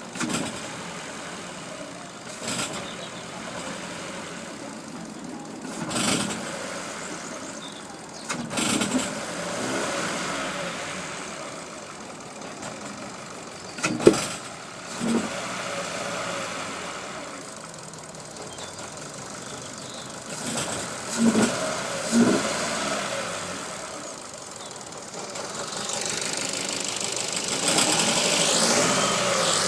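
Ford Fiesta Mk7 petrol engine running, with the throttle pressed several times in short blips and a rise in revs near the end; the owner reports that it makes a weird noise on throttle. One sharp knock about halfway through is the loudest sound.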